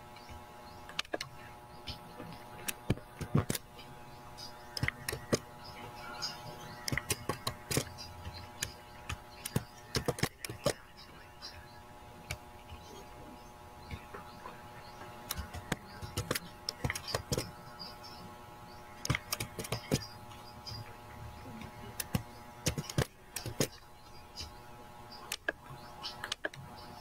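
Computer keyboard typing and clicking in irregular quick clusters, over a steady hum.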